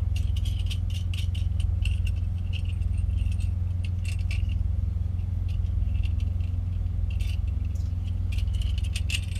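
Steady low drone of a car heard from inside the cabin, with frequent light rattling and clicking over it, like keys or loose items jangling.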